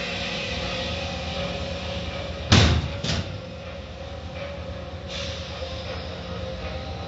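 Automatic car wash heard from inside the car: the wash machinery runs with a steady hum while water streams over the windows. About two and a half seconds in, something hits the car loudly and suddenly, followed by a smaller hit half a second later.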